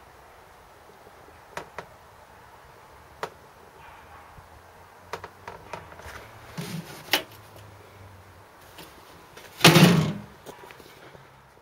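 A few light clicks and knocks, then one loud thump about ten seconds in.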